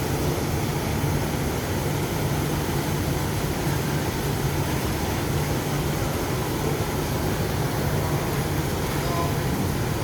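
Steady low mechanical hum under an even rushing noise, unchanging throughout.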